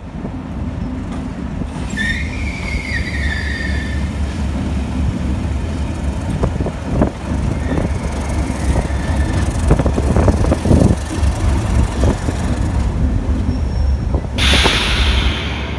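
A train of coaches with a Class 37 diesel locomotive passing slowly on a curve: a steady low engine drone and rumble of wheels, with knocks from wheels over rail joints. About two seconds in, a wavering high squeal of wheel flanges on the curve. Near the end, a sudden louder rushing hiss.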